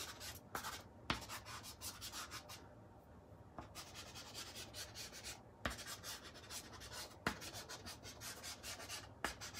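Soft pastel stick scratching across gritty pastel paper in quick repeated back-and-forth strokes as white highlights are laid over earlier colour, with a short lull about three seconds in.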